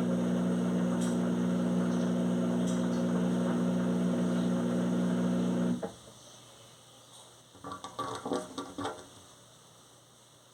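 Electrolux washing machine spinning a duvet, a steady loud hum that stops suddenly a little over halfway through. A few faint clicks and knocks follow about two seconds later.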